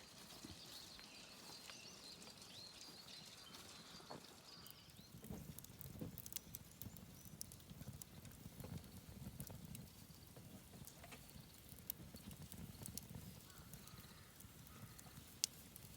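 Faint wood campfire crackling, with scattered small pops and a low, uneven rumble in the middle. Faint birdsong comes in the first few seconds.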